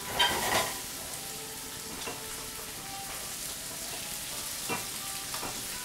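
Food sizzling steadily in a sauté pan on the stove as it is stirred, with a brief louder burst of noise just after the start.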